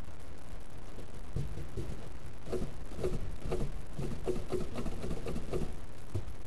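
Failing wheel bearing knocking rhythmically as the wheel turns, about four knocks a second over a steady low rumble, starting about two and a half seconds in; the bearing is bad and has seized.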